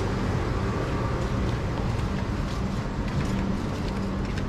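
Urban street noise: a steady low mechanical hum, like a running engine or machinery, over a general background wash, with a few faint clicks.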